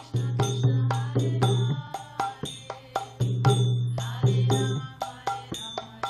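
Mridanga drum played by hand in a steady kirtan rhythm, sharp ringing strokes, over a held low tone that swells and breaks off every second or two.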